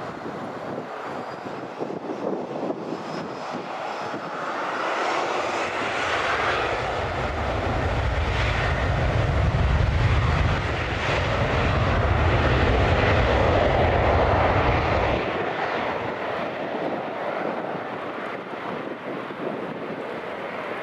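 Jet airliner engines at taxi power, with a whine rising in pitch about five seconds in and a deep rumble that builds over several seconds and then fades.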